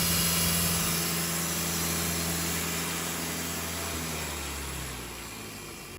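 An engine running steadily, with a low hum under a wide hiss, slowly fading and cutting off suddenly at the end.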